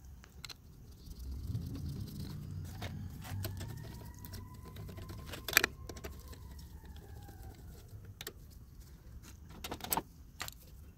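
Light metallic clicks and clinks of screws and small parts being handled and fitted back onto a Toro Recycler lawnmower's engine during reassembly, scattered and irregular. Under them a faint vehicle hum rises and falls in pitch.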